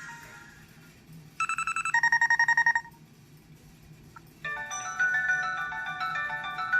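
LG Shine (CU720) cell phone playing its built-in ringtones through its own speaker. A short electronic trill rings about a second and a half in, a rapid warble that steps down in pitch once and stops after about a second and a half. A few seconds later a melodic polyphonic ringtone begins.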